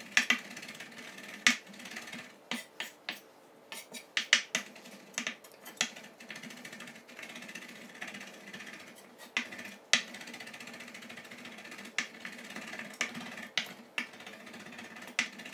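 Irregular sharp clicks and taps of fresh rosemary being stripped off its stems by hand at a cutting board, a dozen or so scattered through the stretch.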